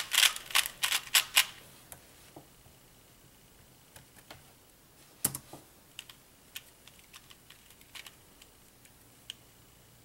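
Plastic 2x2 puzzle cube being turned by hand while it is scrambled: a quick run of sharp clicking turns in the first second and a half, then fainter single clicks spaced out, one move at a time.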